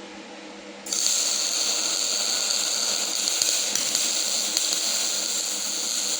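Semi-automatic MIG welder arc crackling steadily during a weld bead, starting abruptly about a second in.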